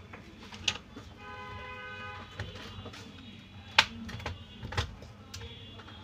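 Plastic snap-clips of a laptop's bottom case clicking loose as the case is pried off with a thin tool: a few sharp clicks, the loudest about two-thirds of the way through. A steady pitched tone, like a horn, sounds in the background for about a second and a half early on.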